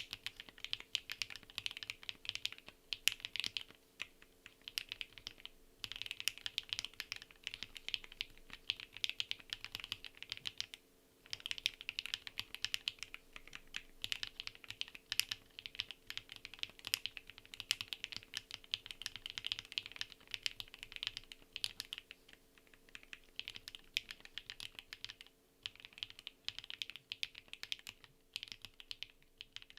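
Continuous fast typing on an MKC75 mechanical keyboard with HMX Lucky linear switches, an aluminium plate and PBT keycaps: a dense patter of key presses and bottom-outs in runs, with brief pauses now and then.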